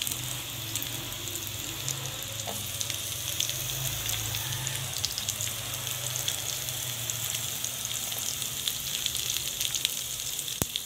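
Onion and garlic sizzling in rendered pork-belly fat in a nonstick frying pan: a steady hiss with many small pops over a low steady hum. One sharp click comes near the end.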